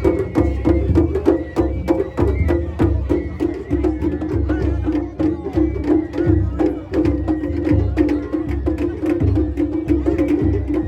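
Live Japanese festival hayashi music: fast, steady drum strikes with a high melody line above them.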